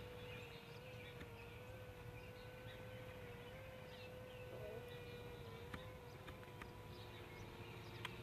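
Faint, steady buzzing whine of a DJI Spark quadcopter's propellers hovering at a distance, its pitch wavering slightly, with a few faint clicks.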